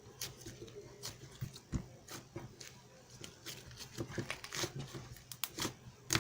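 Irregular light clicks and taps, a few to several a second, over a faint low hum.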